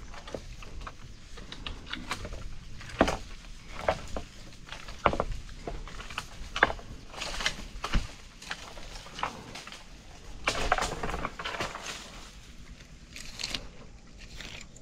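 Dry leaves and twigs rustling and crackling as they are handled or stepped on, with several sharp snaps scattered through and a longer rustle about ten seconds in.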